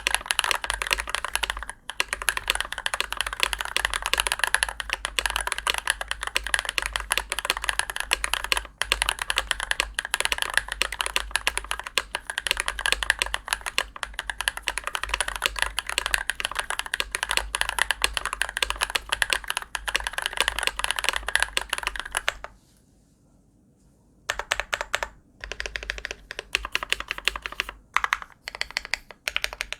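Glorious GMMK Pro mechanical keyboard with lubed Glorious Panda tactile switches, an aluminium plate and PBT keycaps, being typed on quickly and continuously. The typing stops for about two seconds near the end, then resumes as scattered single keystrokes.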